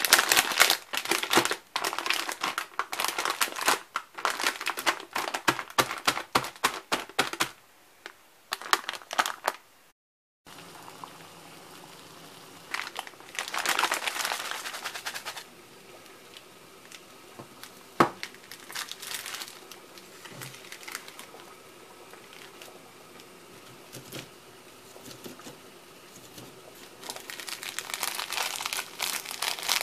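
Plastic wrapper of a Samyang Hot Chicken Flavor ramen packet crinkling in a hand as it is handled and opened. The crinkling is dense for the first quarter, comes back briefly near the middle, and returns near the end as the plastic sauce sachets are handled. There is one sharp click a little past the middle.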